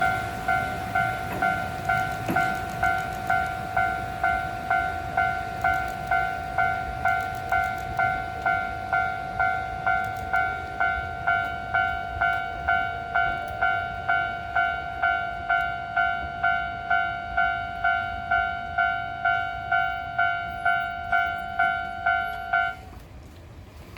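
Japanese railway level-crossing alarm ringing its repeated electronic ding about twice a second, over the low rumble of a KuMoYa E493 series electric unit passing over the crossing. The alarm cuts off about 23 seconds in.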